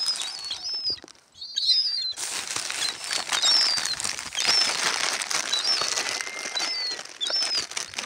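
Young gulls giving short, high, thin whistling calls, many times over, as they crowd round for food. From about two seconds in, a steady rushing, crackling noise runs beneath the calls.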